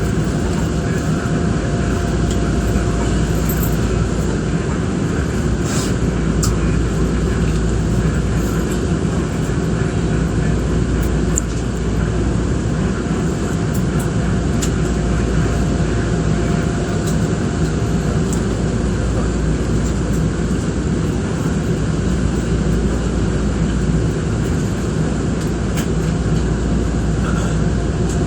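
Steady interior noise of a Nankai Koya Line electric train: an even low rumble with a faint steady tone and occasional light clicks.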